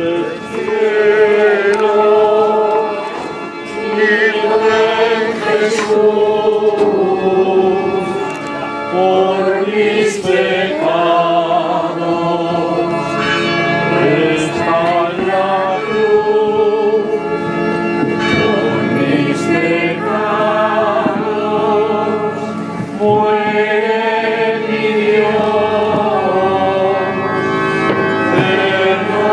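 Religious singing: long held notes with vibrato in phrases a few seconds long.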